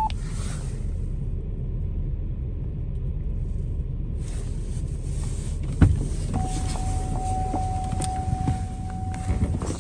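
Vehicle engine running with a steady low rumble. A sharp thump comes about six seconds in, then a steady high-pitched tone holds for about three seconds.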